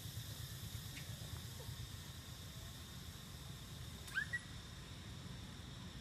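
A low steady rumble with a faint high hum throughout; about four seconds in, one short rising squeak from an animal.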